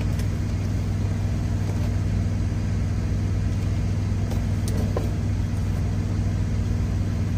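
Truck engine idling, a steady low hum heard inside the cab.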